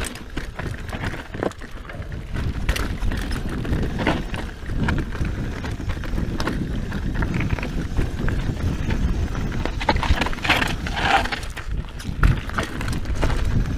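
Scott Genius full-suspension mountain bike riding down a dry, rocky dirt trail: tyres rolling over dirt and stones, with frequent knocks and rattles from the bike and wind rumble on the camera microphone.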